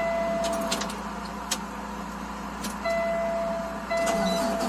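Electronic warning beeps, each about a second long with short breaks between them, stopping for about two seconds in the middle. A steady low rumble and a few sharp clicks run underneath.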